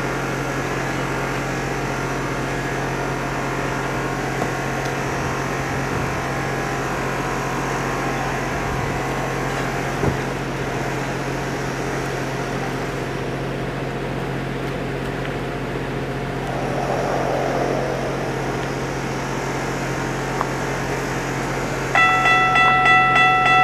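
Steady background hum, then near the end the level crossing's warning bell starts ringing in quick, even pulses as the signals activate for an approaching train.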